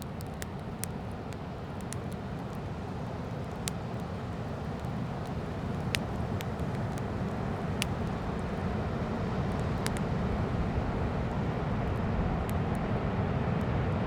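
Fire crackling with scattered sharp pops, over the steady low rush of ocean surf that slowly grows louder.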